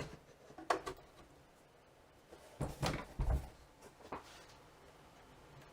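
A few short clunks and clicks of hardware being handled on a bench: a single click, then a cluster of heavier knocks about halfway through, the loudest, and one more click near the end.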